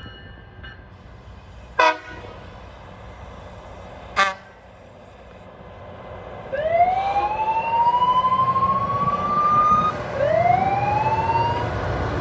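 Loram rail grinder's warning signals: two short toots a couple of seconds apart, then a siren that winds up in pitch for a few seconds, cuts off, and winds up again more briefly.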